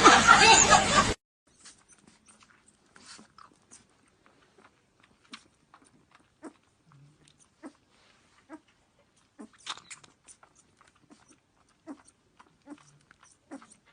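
A dog's whining voice for about the first second, cutting off suddenly, then faint scattered small clicks and smacks.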